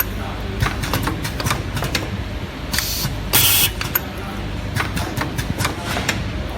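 Automatic USB Type-C cable soldering machine running: a steady hum with repeated mechanical clicks and clacks, and two short bursts of hiss about three seconds in.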